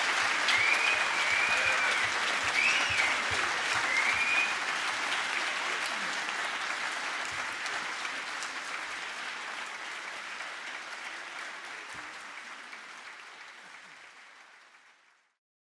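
Theatre audience applauding a curtain call, with a few high cheers in the first few seconds. The applause gradually fades out.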